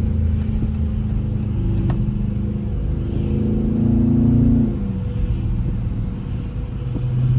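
Car engine heard from inside the cabin while driving, accelerating: its note climbs in pitch and loudness for a few seconds, peaks about four and a half seconds in, then drops away suddenly. Near the end a lower, steadier engine note swells up.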